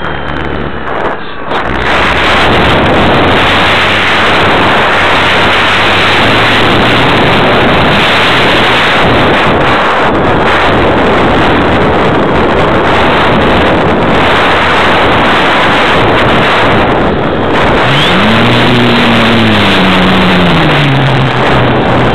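Wind rushing hard over the microphone of a camera riding on a flying RC model plane, mixed with the model's motor. Near the end the motor's pitch rises, falls and rises again as the throttle changes.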